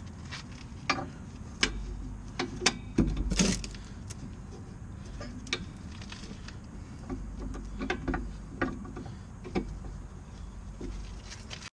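Scattered metallic clinks and knocks of hand tools and brake parts being handled during a rear disc brake job, over a low steady hum. The sound cuts off suddenly near the end.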